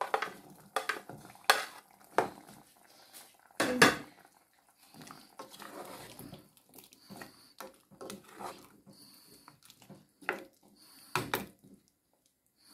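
A metal spoon clinking and scraping against a metal saucepan as carrots are added to the curry and stirred. The knocks come irregularly, the loudest about one and a half and four seconds in, with softer scraping between them.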